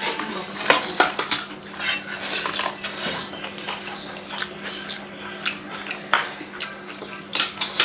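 Irregular clinks and scrapes of a utensil against a plate as food is mixed and eaten, over a faint steady hum.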